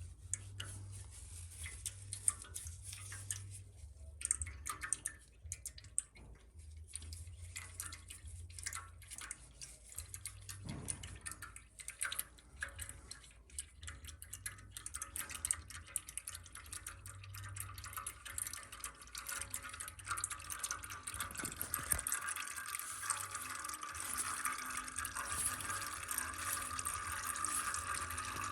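Engine oil dripping from the drain opening into a drain pan, in scattered drips that give way to a steadier trickling hiss from about two-thirds of the way in.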